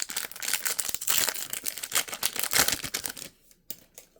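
Foil booster-pack wrapper crinkling and tearing as a Pokémon card pack is opened by hand; the crackle stops about three seconds in, leaving only a few faint ticks.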